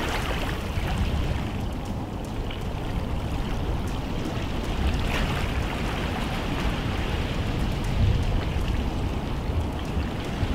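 Waves breaking and washing against a lakeshore: a steady rushing noise with a low rumble that swells now and then, loudest about eight seconds in.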